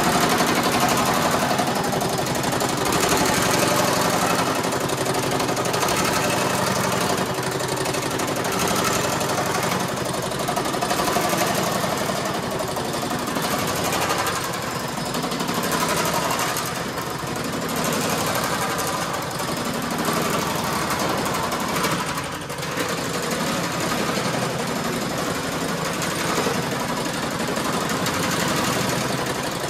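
Matthys power hammer hammering an aluminium body panel at a fast, steady rate as the panel is worked between its dies, shaping it.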